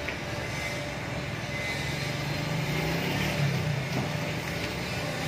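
Steady vehicle and traffic noise, with a low engine hum that grows louder about two seconds in and eases off after about four seconds.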